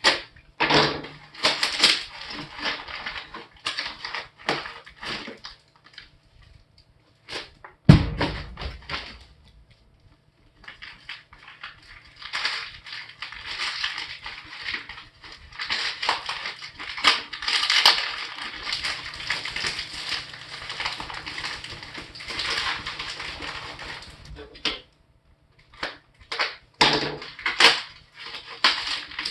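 A package being opened by hand: cardboard and packing material crackling and rustling in irregular bursts, with a heavy thump about eight seconds in and a long stretch of continuous rustling in the middle.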